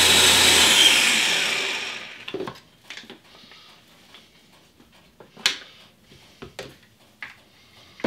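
Small top-mounted electric blender motor running as it purees soaked cashews into a smooth sauce, switched off about a second in and spinning down. Then a few sharp plastic clicks and knocks as the motor cap is lifted off and the jar is handled, the loudest about halfway through.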